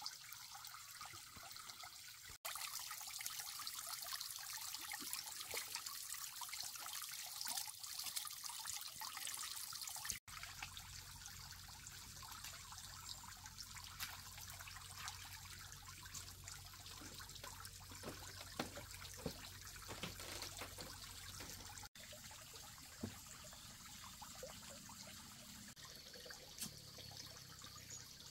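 Lake water splashing and trickling at a netted fish cage as a hand reaches in and fish stir at the surface, with scattered small clicks. The sound changes abruptly three times as the scene cuts.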